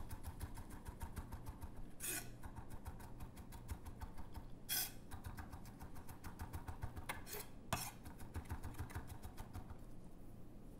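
Schmidt Bros. chef's knife rocking back and forth through minced garlic, its blade tapping on a wooden cutting board in a fast run of light knocks, several a second, with a few louder strikes.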